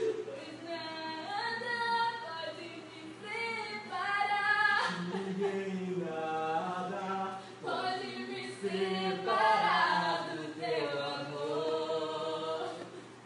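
Voices singing a slow song without instruments, with long held notes that rise and fall.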